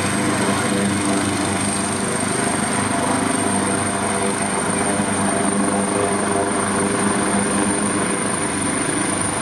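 Medevac helicopter running steadily on the ground: a high turbine whine over a low engine and rotor hum, the whine edging slightly higher over the seconds.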